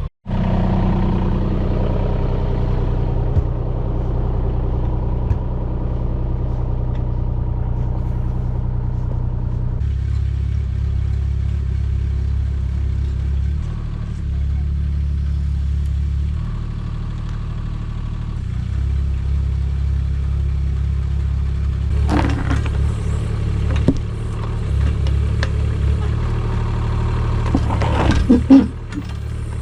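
Mini excavator engine running steadily while digging, its note shifting as the hydraulics are worked. Knocks and clatter of the bucket on stones and soil come in bursts several seconds from the end.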